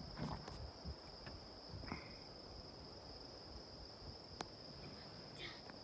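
Crickets trilling in a faint, steady, unbroken chorus, with a few soft clicks.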